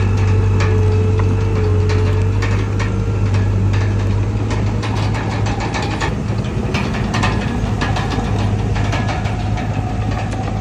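Bulldozer's diesel engine running with a steady low drone, over frequent metallic clicks and clanks from the machine working.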